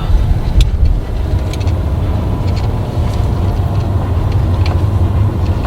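Vehicle driving along a road: a steady low engine and tyre rumble, with scattered small clicks and rattles.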